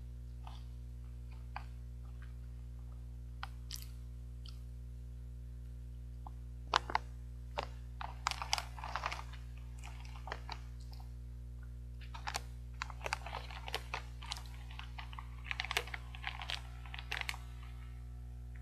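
Caramel corn and peanut snack crunching in the mouth, with its plastic bag crackling as it is tipped in, heard as irregular bursts of crisp clicks from about seven seconds in and again from about twelve seconds in. A steady low hum runs underneath.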